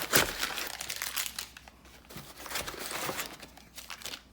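Packaging crinkling as it is handled, in two stretches with a short lull about two seconds in.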